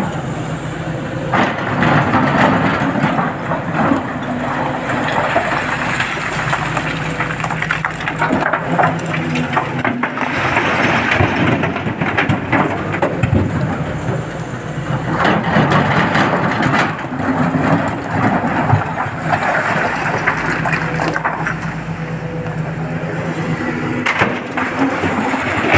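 SANY excavator working: its diesel engine runs steadily under load, with repeated surges of rumbling and crashing from rock and earth.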